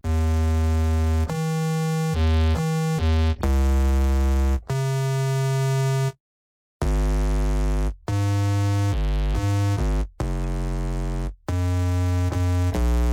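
Dubstep synthesizer phrase at 140 bpm in F major: a bright, buzzy synth playing a line of held notes at changing pitches, with short breaks between them and one full break about six seconds in, without drums.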